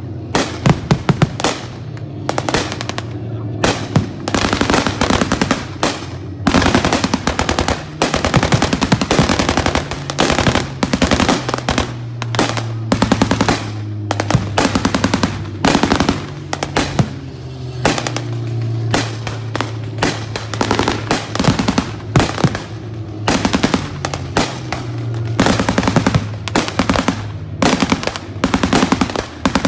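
Machine guns firing blanks in long rapid bursts with short breaks between them, over a steady low hum.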